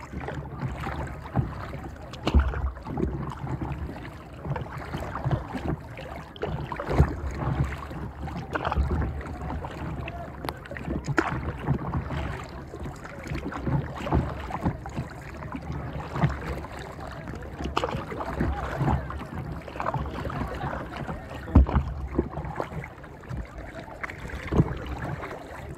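Lake water lapping and splashing against a plastic kayak's hull, with irregular small knocks and splashes and wind on the microphone.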